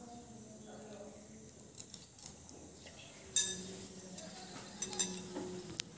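A spoon clinking against a bowl as someone eats: a few light clinks, the loudest about three and a half seconds in.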